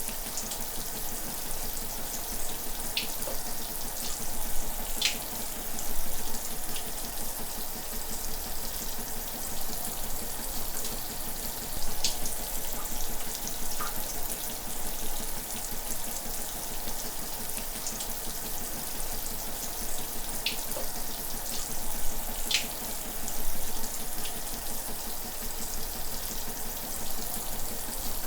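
Shower running steadily, the spray making an even hiss with a few sharper splashes of drops now and then.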